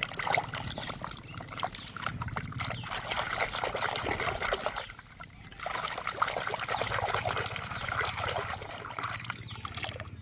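Water trickling and splashing in two spells, with a short break about five seconds in, over a low steady hum.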